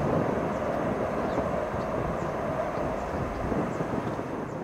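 Boeing C-17A Globemaster III's four Pratt & Whitney F117 turbofans giving a steady jet noise as the airlifter climbs away.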